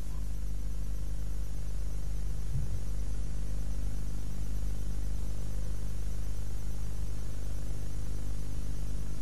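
Steady electrical hum with a constant hiss, as from an amplified sound system or recording chain with nothing yet playing.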